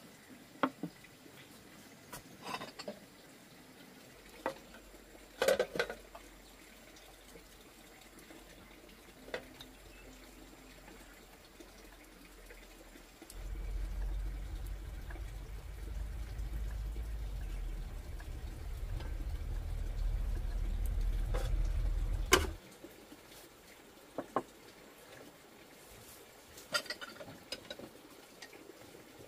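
Scattered clinks and knocks of dishes and utensils being handled, with a low steady rumble for about nine seconds in the middle that cuts off suddenly.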